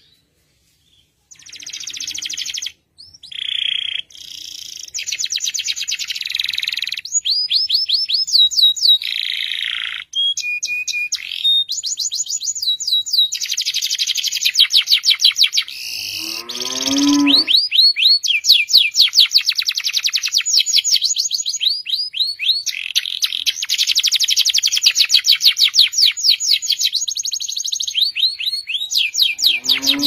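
Domestic canary singing a long continuous song of fast trills and rolls, each phrase a rapid run of repeated notes, switching to a new phrase every second or two after a short silence at the start. About halfway through, a brief deeper call falls sharply in pitch.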